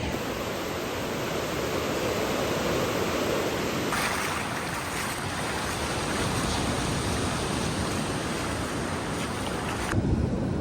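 Ocean surf washing onto a beach: a steady rushing noise of waves, changing in character about four seconds in.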